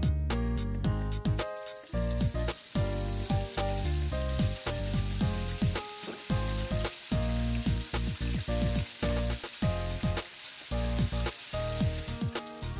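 Battered chicken deep-frying in a pot of hot oil: a steady sizzle as the pieces go back in for a second fry to crisp them. Background music with changing notes plays over it.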